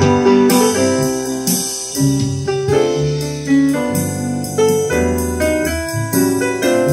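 Jazz piano recording: a steady stream of struck piano notes over a deep low line.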